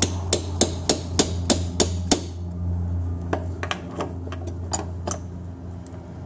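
Hammer striking a homemade pointed steel punch driven into the old rear main crankshaft seal to pierce it for levering out: about eight sharp metallic blows, roughly three a second, over the first two seconds, then lighter, irregular taps.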